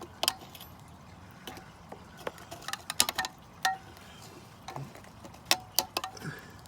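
Brake hold-down spring tool and the steel hold-down spring and retainer cup on a 2002 Jeep Liberty's rear drum brake, clicking and clinking as the tool is twisted to release the spring. The sharp metallic clicks come irregularly, a few with a brief ring, bunched around the middle and again near the end.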